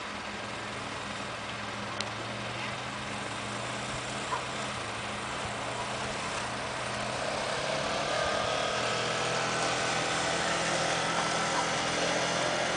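A motor running steadily: a constant low hum under an even rushing noise, with faint voices mixed in during the second half.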